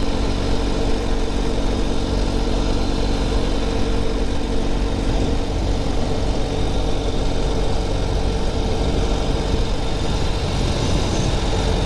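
Motorcycle engine running steadily at cruising speed, with wind rushing over the rider's microphone.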